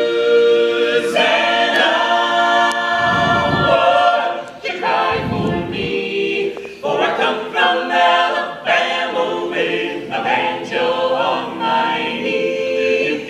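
A small mixed group of men and women singing a cappella in close harmony, holding sustained chords.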